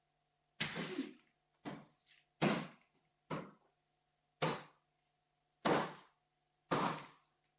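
A light ball being hit back and forth by hand: about seven dull thumps, roughly one a second, each with a short echo in a hall.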